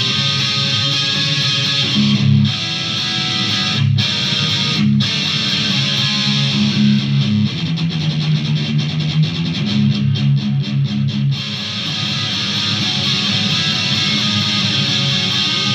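Electric guitar played through effects pedals: a low, chugging riff broken by a few short stops, with a stretch of fast picking about halfway through.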